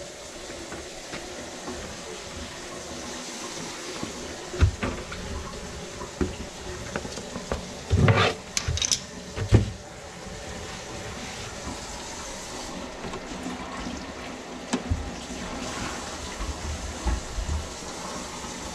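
Water running and draining steadily, with scattered knocks and a cluster of loud clunks about halfway through.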